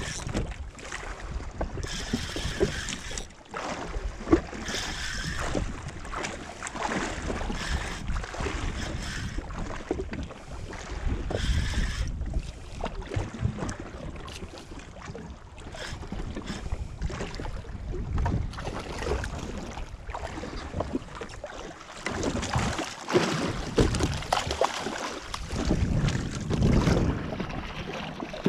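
Wind buffeting the microphone and waves slapping against a jetski's hull out at sea, with gusty surges that grow louder and choppier near the end. A faint high whine comes and goes every few seconds during the first half.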